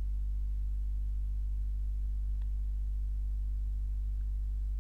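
Steady low electrical hum with faint overtones, unchanging throughout, with a faint click about halfway through.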